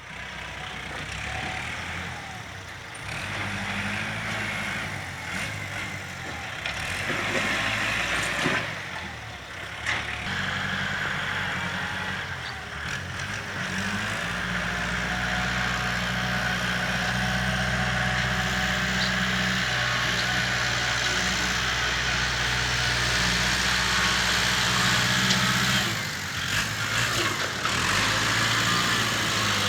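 Diesel engine of an earth-moving machine working, its revs rising and falling with the load. It holds steady and stronger through the middle, then eases off briefly near the end.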